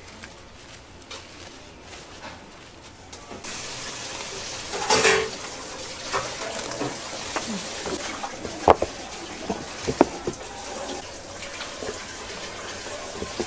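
Tap water running into a sink, setting in about three and a half seconds in, with a few sharp knocks and clinks of kitchenware over it.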